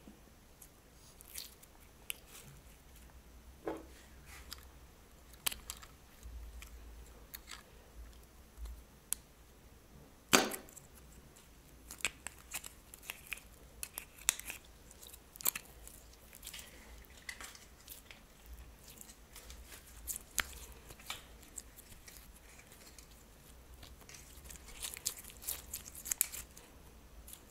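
Slime and plastic piping bags being handled: scattered small clicks, pops and crinkles, with one louder snap about ten seconds in and a quicker run of clicks near the end.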